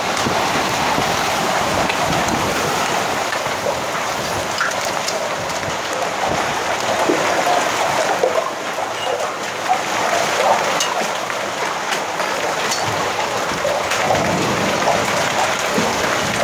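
A heavy rain and hail storm coming down hard: a dense, steady hiss of rain with scattered sharper hits throughout.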